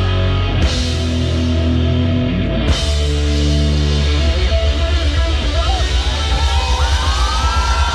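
Live rock band playing loudly through a PA: electric guitars holding chords over heavy bass, then a driving drum beat from about four seconds in.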